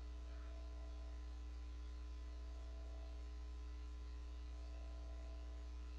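Steady electrical mains hum, a constant low buzz with faint steady overtones above it. There are no audible tool clicks or knocks.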